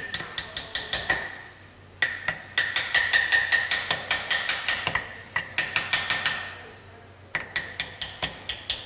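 Small hammer tapping quickly, about five light strikes a second, on the cam sensor bracket of a Subaru EJ253 cylinder head to crack it loose from its hollow locating dowel. The tapping comes in three runs with short pauses, each strike with a light metallic ring.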